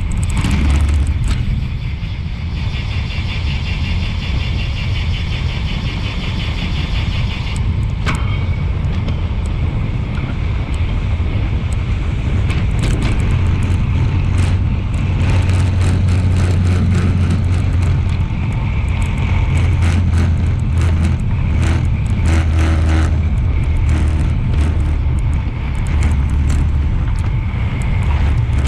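Wind buffeting an action camera's microphone on a road bike at race speed, about 35–50 km/h, as a steady low rumble mixed with tyre noise. From about two to seven seconds in there is a stretch of fast, even ticking, and scattered sharp clicks come through later.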